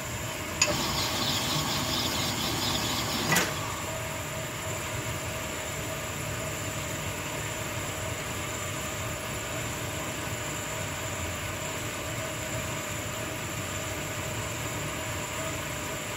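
Connecting-rod honing machine running: for about three seconds a rod's big end is stroked over the honing stone with a louder, rough, pulsing scrape, framed by a sharp click at the start and a clank at the end. The machine's motor then runs on with a steady hum. The big end is being honed a little at a time towards its finished size.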